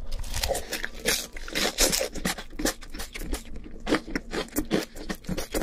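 Close-miked chewing of a big mouthful of fried chicken and shredded green onion: a dense, irregular run of crunches and wet mouth clicks.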